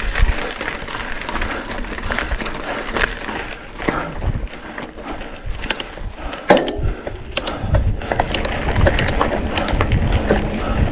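Mountain bike rolling over a dirt and gravel track: tyres crunching on loose stones, with many sharp clicks and rattles from the bike. A low rumble grows stronger near the end.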